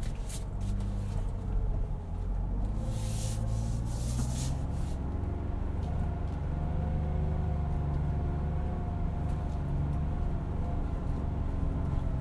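Ford Bronco's 2.7-litre EcoBoost twin-turbo V6 running at low revs in four-low while crawling off-road, heard from inside the cabin. The revs rise slightly about two seconds in and then hold steady. A brief hiss comes between about three and five seconds in.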